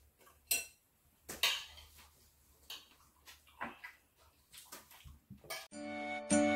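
Light clinks and knocks of a glass tea cup and glass teapot being handled on a table, several separate taps. Near the end a chiming jingle of outro music starts, with repeated bell-like notes.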